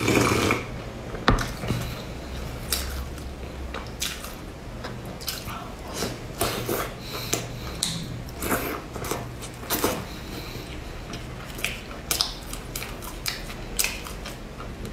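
A loud slurped sip from a bowl, a sharp knock just over a second in, then biting and chewing soft cream-filled bread rolls with many small, irregular wet mouth clicks, over a low steady hum.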